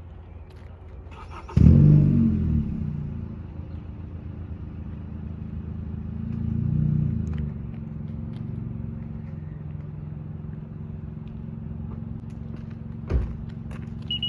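Car engine starting about one and a half seconds in, then idling steadily with a brief rise in revs around seven seconds. Near the end a single thud, and a steady high beeping begins just as it closes.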